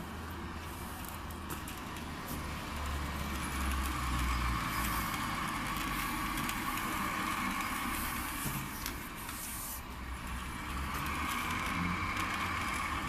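Electric cable-stripping machine running steadily, its motor humming as a long black cable is pulled through the stripping blades; the sound grows louder about three seconds in, eases briefly near ten seconds, then picks up again.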